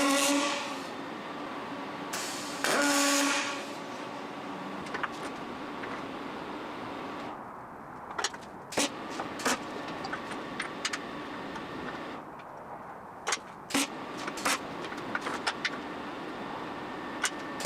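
Two loud ringing scrapes, each about a second long, then a scattering of sharp metallic clanks and knocks from steel being handled in a fabrication workshop.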